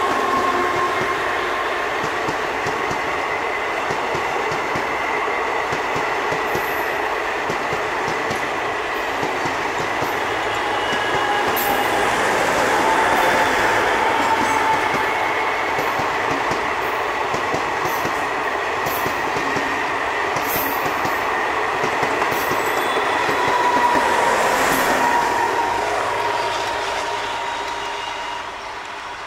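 Rohtak–Rewari dual-fuel CNG/diesel DEMU passenger train rolling past at close range: a steady heavy rumble of wheels on rail with clicks at the joints and a thin steady wheel whine over it. It fades near the end as the train runs away.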